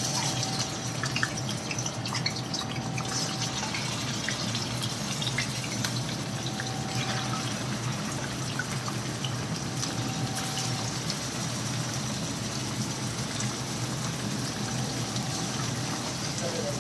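Raw chicken pieces sizzling in hot ghee in a karahi: a steady frying hiss with small crackles, and a few light clicks in the first few seconds as the pieces go in.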